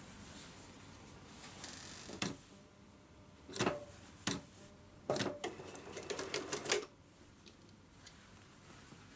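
Industrial lockstitch sewing machine handled with fabric: a few separate knocks and clunks as the work is set under the presser foot, then a short run of slow stitching, a quick string of clicks about seven a second for a second and a half.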